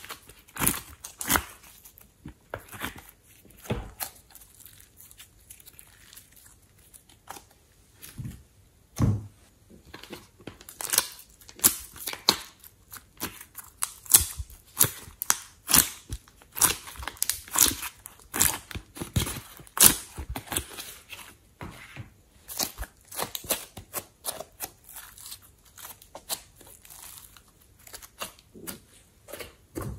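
Slime and soft clay being squeezed, pressed and stretched by hand, giving an irregular run of sticky crackles and pops. The crackles are thickest through the middle.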